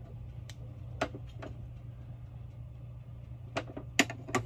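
A few light clicks and knocks from small objects being handled, the sharpest about four seconds in, over a steady low hum.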